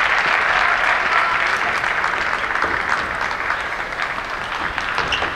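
Spectator crowd applauding in a large sports hall after a point, the clapping slowly dying away, with a few sharp clicks near the end.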